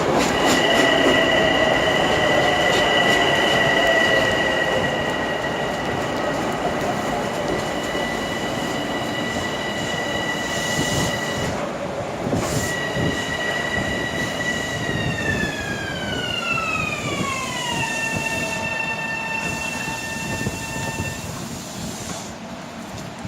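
Long Island Rail Road M7 electric multiple unit running through the station: its propulsion inverters and traction motors give a steady high-pitched whine over the rumble of wheels on rail, with a few rail-joint clicks at first. The whine breaks off briefly and then falls in pitch over about three seconds as the train changes speed, before fading out.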